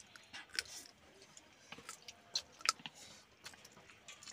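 Mouth sounds of eating instant noodles: chewing and slurping. Irregular sharp clicks come from wooden chopsticks on plastic bowls and from smacking lips.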